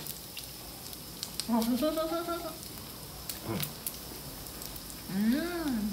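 Freshwater eel sizzling on a round tabletop grill pan, a steady faint hiss with scattered sharp pops. A person's voice sounds briefly twice, about a second and a half in and near the end.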